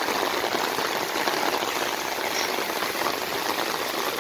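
Heavy rain falling on a flooded asphalt road: a steady, dense hiss of countless drops striking standing and running water.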